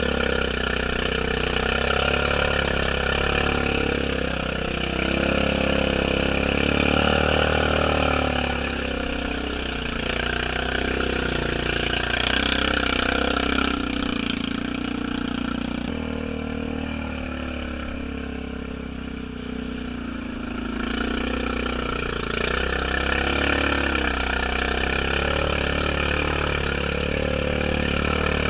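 Honda Rubicon ATV engine running at low, varying speed as it wades through a deep water-filled mud hole, its pitch rising and falling with the throttle and easing off for a few seconds about two-thirds of the way through.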